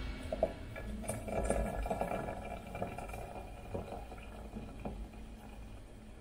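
Hot water pouring from a gooseneck kettle into a glass teapot over loose dried herbs, a steady splashing trickle with a few small clinks that grows quieter toward the end.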